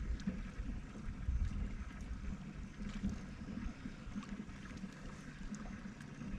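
Low, steady rumble of wind and water around a bass boat, with a faint steady hum and a few light clicks.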